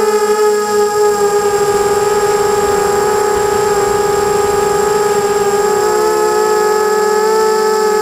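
A 250-size FPV racing quadcopter's brushless motors and propellers whining steadily in flight. Several close tones drift a little in pitch with throttle, and shift about six seconds in.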